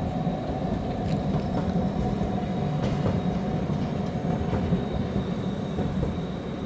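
Tram running on its rails: a steady rumble with a faint, high, steady whine above it.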